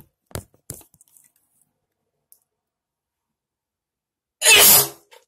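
A few short clicks in the first second, then a single loud, sharp sneeze near the end.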